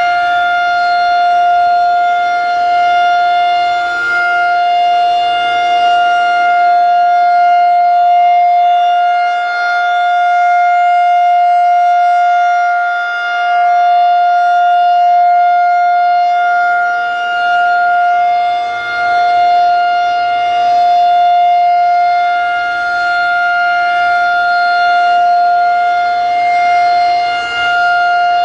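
Federal Signal 2001-130 rotating electromechanical tornado siren sounding its full-alert cycle: one loud steady tone held at a fixed pitch, its loudness swelling and dipping every several seconds as the rotating horn sweeps past.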